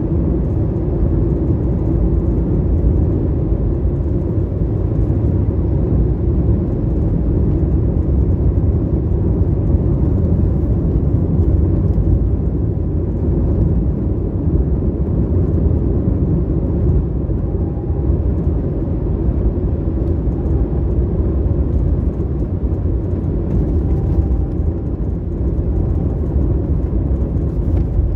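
Steady low rumble of a car on the move, tyre and road noise without a clear engine note.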